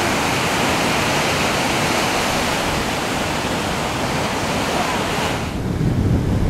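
Ocean surf breaking and washing, a steady loud rush of water. About five and a half seconds in, the hiss drops away and a lower rumble takes over.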